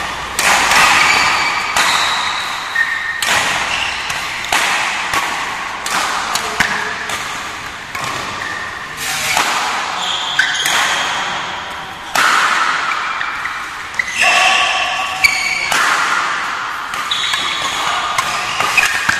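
Badminton rally: rackets striking the shuttlecock in sharp hits about every second or two, echoing in a large hall, with short high squeaks of shoes on the court mat between the hits.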